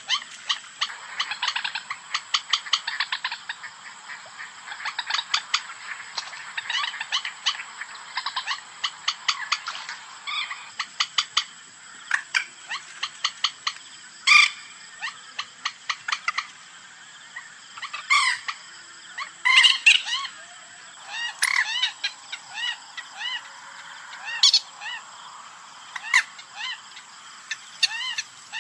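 Common moorhen (mandar batu) calls recorded for use as a hunting lure call: fast runs of short repeated notes for the first ten seconds or so, then louder single calls every second or few.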